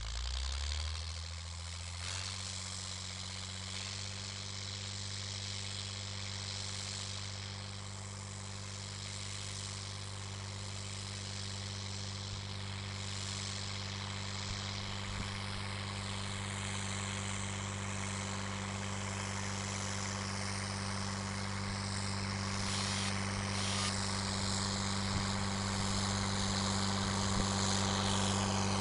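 Volvo BM Valmet 2105 tractor's diesel engine working under load as it pulls a seed drill across the field, a steady drone that picks up speed over the first couple of seconds and then grows slowly louder as the tractor draws nearer.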